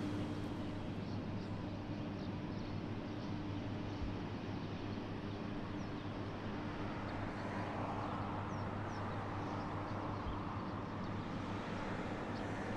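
Steady room ambience: a constant low hum under an even wash of noise, with faint short high chirps scattered through it.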